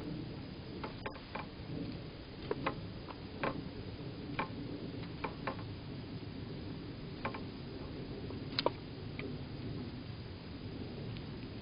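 Irregular sharp clicks and taps from a squirrel feeding at a hanging seed feeder, over a steady low background hum.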